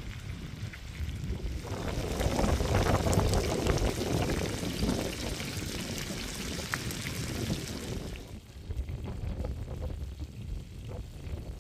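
Beef steaks and asparagus sizzling in a hot pan, a dense crackling hiss that swells about two seconds in and falls away near the end. A low steady rumble runs underneath.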